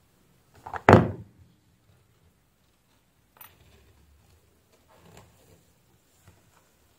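Pliers working the metal shell off a USB-C cable connector: one loud, sharp click about a second in, then a few faint clicks and rustles of handling.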